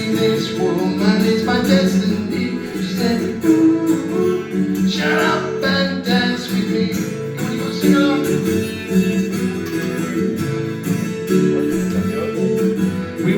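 Strummed acoustic guitar playing a pop song's accompaniment in a break between sung lines.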